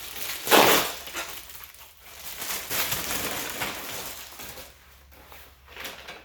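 Grill parts being handled: a sharp knock about half a second in, then rustling, crinkling and small clicks.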